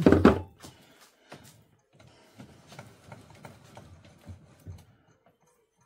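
Scattered light clicks and knocks of metal lathe parts as the carriage and toolpost of a stopped Myford lathe are moved and set by hand.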